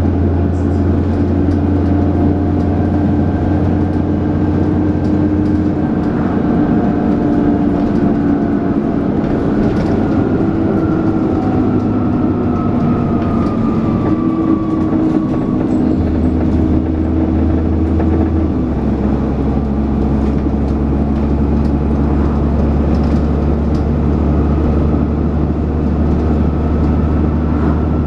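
Dennis Trident 2 double-decker bus running under way, heard on board: a loud, steady low drone with whining tones over it, the 'hoover' whine that bus enthusiasts name. A whine slides down in pitch about halfway through, and the engine note changes pitch in steps about two-thirds through.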